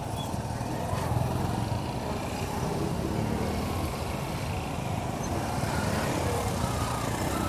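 Steady road traffic noise: a continuous rumble of passing vehicle engines.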